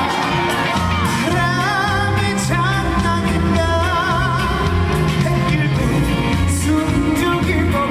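A trot song performed live: a male singer holds long notes with a wide vibrato over backing music with a steady pulsing bass beat.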